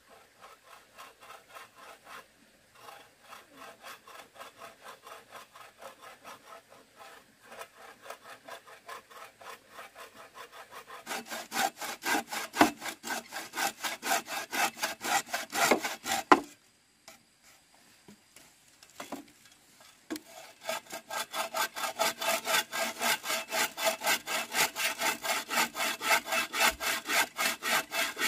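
Hand sawing of wood, a steady back-and-forth rasp at about three strokes a second. The strokes are faint at first and grow louder about eleven seconds in. They stop for a few seconds past the middle, then start again.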